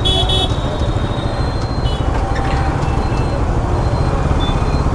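Steady wind rush on the microphone of a moving motorcycle, with its engine and road and traffic noise underneath.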